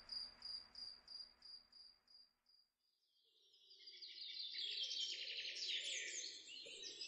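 Faint night ambience of crickets chirping in a steady pulse, about three chirps a second, fading out over the first few seconds. Birds then start chirping, a sound-effect bridge from night to morning.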